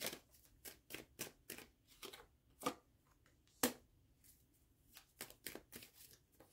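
Tarot cards being handled by hand: a run of light, irregular flicks and taps as cards are shuffled and drawn, with a sharper snap about three and a half seconds in as a card is laid down.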